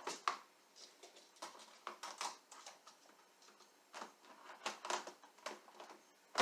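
Irregular light clicks and rustles of hands handling the plastic parts of a Zoom Tube toy car track, opening it and fitting the car in.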